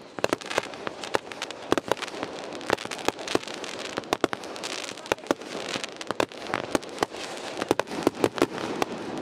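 Consumer fireworks going off: many sharp, irregular pops and crackles, several a second, over a steady crackling hiss as glittering shells burst.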